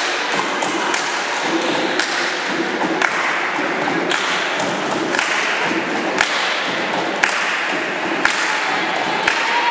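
Dull thuds repeating about once a second in a reverberant sports hall, over a steady murmur of voices and room noise.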